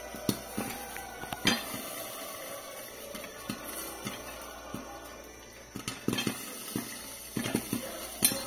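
Popcorn kernels starting to pop inside a covered aluminium pot on a gas stove: scattered sharp pops against the pot and lid, coming more often from about six seconds in, over a steady hiss.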